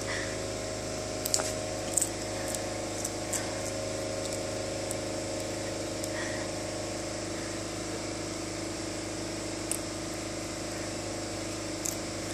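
Young kitten chewing popcorn: a few short, sharp crunches scattered over a steady mechanical hum.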